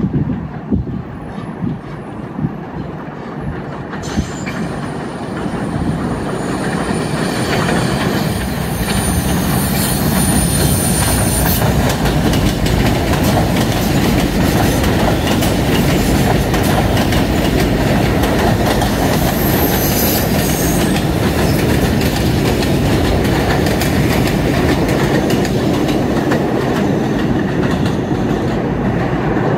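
NYC Subway R68 train running along the track, growing louder over the first several seconds and then steady, with wheels clattering over the rail joints. A thin high wheel squeal comes in a few seconds in and again past the middle.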